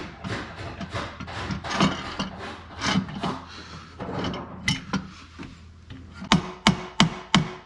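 Metal hand-tool work at a scooter's exhaust mounting: irregular clinks, scrapes and rubbing as a wrench works a nut and the exhaust shifts against the engine casing. About six seconds in, a steady run of sharp clicks begins, about three a second.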